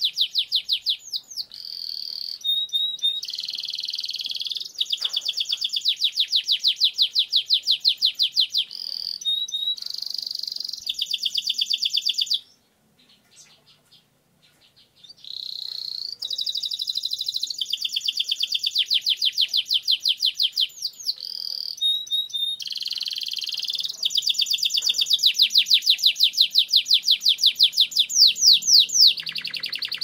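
Domestic canary singing a long rolling song (ngerol): fast trills of rapidly repeated high notes mixed with short held whistles, run together almost without a break. It stops for about three seconds near the middle, then starts again.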